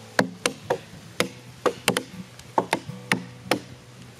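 Axes chopping into a log, several people striking out of step: about a dozen sharp blows in an uneven rhythm as they hollow out the log for a dugout canoe.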